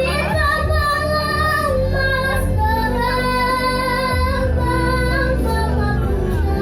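A schoolgirl singing in long held notes over musical accompaniment.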